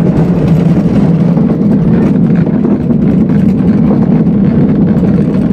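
Gravity luge carts rolling down a concrete track: the wheels make a loud, steady rumble, heard from on board the filming rider's own cart.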